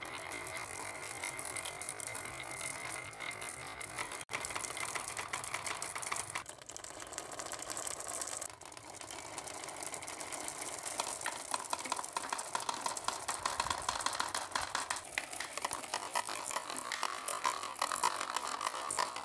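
Many marbles rolling and clicking down marble-run ramps, a dense continuous clatter. It breaks off briefly about four and eight seconds in and grows louder toward the end.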